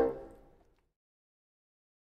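The last notes of two bassoons dying away in about half a second, then silence.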